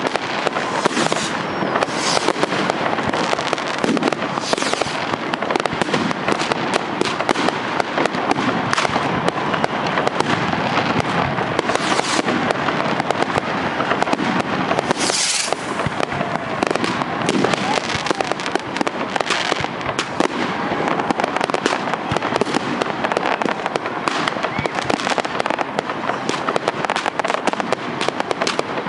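Many fireworks going off at once: a continuous mass of bangs, pops and crackling from rockets and firecrackers, with one especially loud burst about halfway through.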